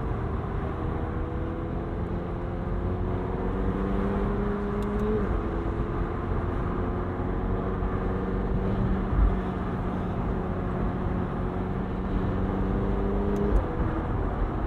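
McLaren 720S Spider's 4.0-litre twin-turbo V8 running at moderate revs under road and wind noise, heard from inside the car. The engine note climbs slowly, steps down in pitch about five seconds in, holds steady, then climbs again and steps down once more near the end.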